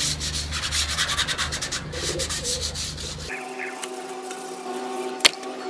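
1000-grit sandpaper rubbed by hand in quick back-and-forth strokes over the painted steel fuel tank, scuffing the dry enamel between coats. The sanding stops about three seconds in, and a steady hum with several tones and one sharp click follow.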